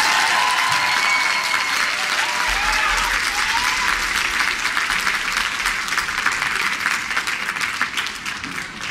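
Audience applauding, with high cheers and whoops over the clapping in the first few seconds; the applause tails off near the end.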